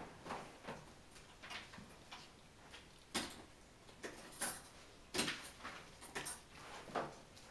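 Irregular short clicks and scuffs, about a dozen, from spaniels moving about in a puppy pen, the sharpest about three and five seconds in.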